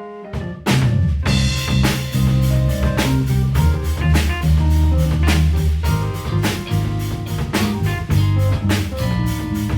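Live band playing the instrumental intro of a song. A few soft keyboard notes give way, under a second in, to the full band kicking in with drum kit and guitar over a heavy low end, with steady drum hits.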